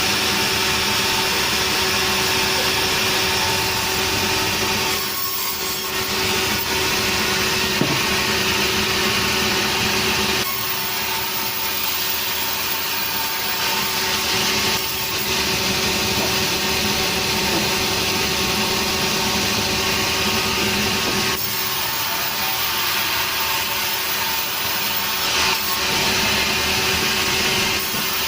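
Sawmill saw running steadily and cutting through nering wood, with a few brief dips as the load on the blade changes.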